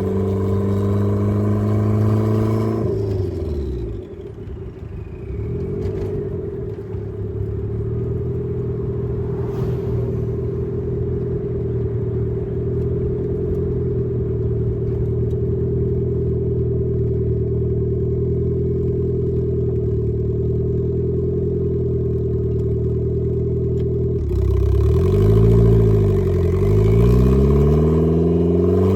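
Turbocharged Mazda Miata engine pulling and climbing in revs for the first few seconds, then falling away as the throttle is lifted. It runs steadily at lower revs for about twenty seconds, then revs up and down several times near the end.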